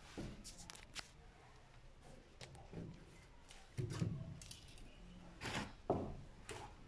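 Irregular knocks and soft thumps with a few sharp clicks among them, heaviest about four seconds in and again near the end.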